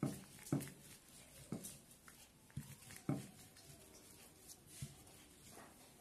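Wooden rolling pin rolling dough on a polythene-covered stone rolling board, with about six faint, irregular knocks as it bumps and rocks on the board.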